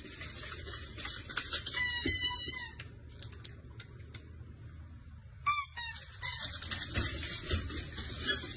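Husky puppy howling in several short, high-pitched, wavering calls, with pauses between them.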